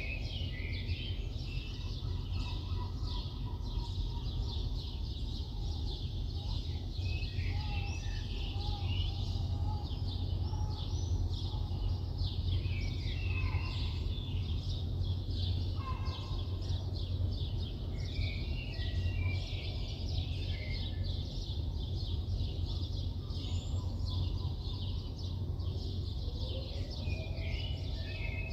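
Many small birds chirping continuously in a dense morning chorus, with a few clearer, lower calls standing out, over a strong steady low rumble of city background noise.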